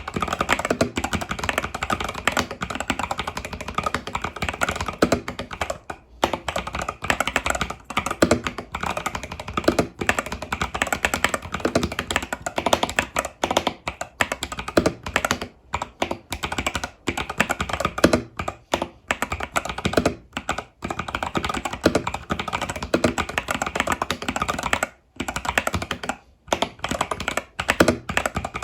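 Fast, continuous typing on an Epomaker TH80 Pro mechanical keyboard with Epomaker Budgerigar tactile switches and stock keycaps: rapid key clacks, broken by brief pauses now and then.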